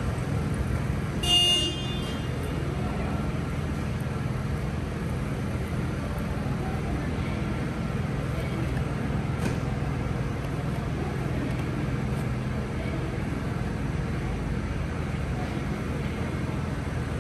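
Steady low mechanical hum. About a second and a half in, a short, high-pitched toot sounds once.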